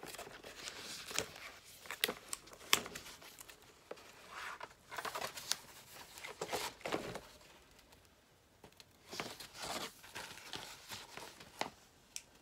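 Paper and packaging of a stationery kit being handled: crinkling and rustling as sticker sheets are sorted, with scattered sharp clicks, coming and going in spells.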